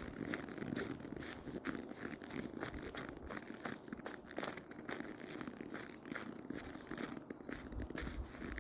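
Footsteps crunching in snow, with clothing rustling against the phone microphone: an irregular run of soft crunches and crackles.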